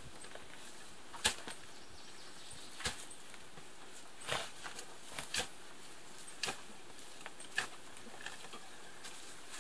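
Shovel digging into soil and sod: irregular short scrapes and strikes of the blade going into the ground, about one every second or so.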